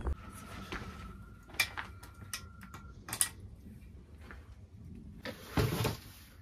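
A series of light clicks and knocks from objects being handled, with one louder rustling scrape near the end.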